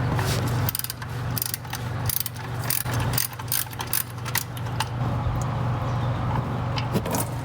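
Socket ratchet wrench with a 17mm socket clicking in irregular runs as it works the oil drain plug loose, over a steady low hum.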